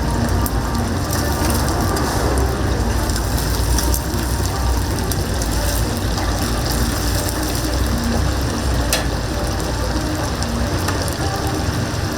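Whole chickens deep-frying in a vat of hot oil: a steady, dense sizzle like heavy rain, with a few sharp clicks on top.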